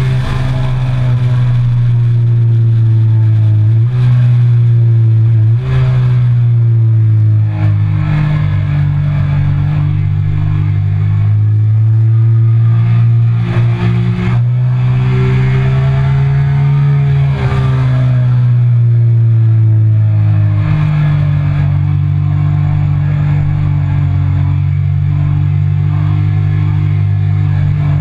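Triumph Speed Triple 1050's three-cylinder engine running hard on track, heard from on board, its note rising and falling with the throttle and jumping abruptly in pitch a few times as gears change.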